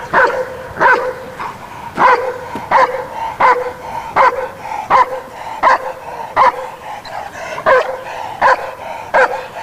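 Young Dobermann barking in a steady, even rhythm, roughly one bark every three-quarters of a second, the sustained barking of a dog on leash in protection work facing the helper.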